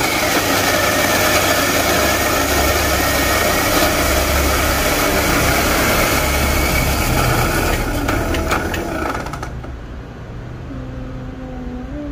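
Electric coffee grinder grinding a small dose of coffee beans: a steady whirring that starts abruptly and cuts off after about nine and a half seconds. Afterwards a quieter vehicle engine with a wavering pitch is heard.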